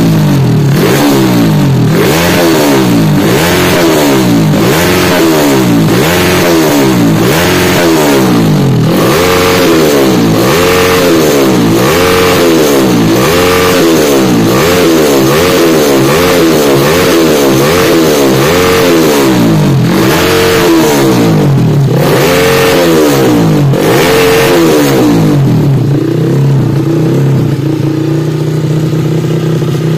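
Yamaha Jupiter Z1 single-cylinder four-stroke engine running bare on a test stand with an open bellmouth intake, blipped by hand at the throttle body over and over, its revs rising and falling roughly once a second. Near the end it settles into a steady idle.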